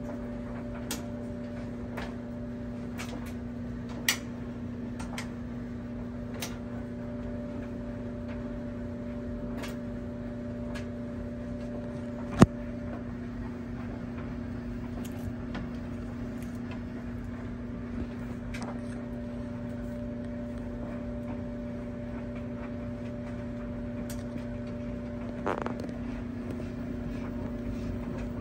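Steady electrical hum of a running appliance, with scattered small clicks and one sharp click about twelve seconds in.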